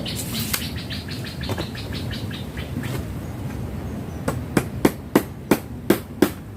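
A bird trilling, a fast run of repeated high notes, for the first three seconds or so. A little past four seconds in, evenly spaced sharp knocks begin, about three a second.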